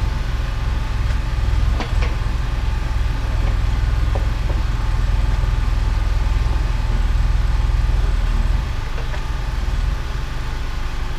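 Bobcat E32 mini excavator's diesel engine running steadily with a low drone that eases off slightly about eight and a half seconds in.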